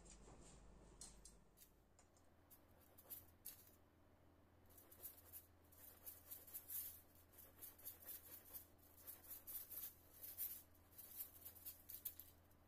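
Knife scraping and trimming the crisp outer crust of a baked sponge cake: a run of short, faint rasping strokes that starts about five seconds in.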